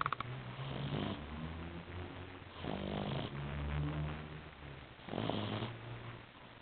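An eight-week-old pet snoring in deep sleep: three rasping breaths about two and a half seconds apart, with a low rumble between them. A short sharp tick right at the start.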